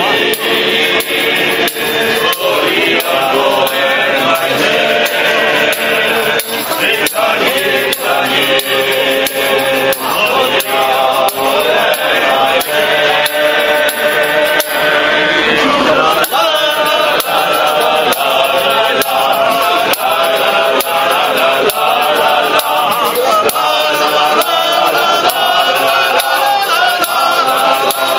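A group of men singing together, with a tambourine beaten in time to the song.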